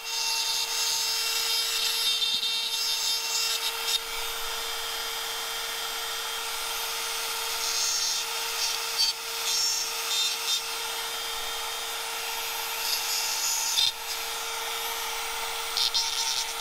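Pencil die grinder spinning a carbide burr with a steady high whine, with a scratchy hiss that comes and goes as the burr lightly touches the cast iron. It is deburring casting flash and rounding edges on a Buick 455 V8 block.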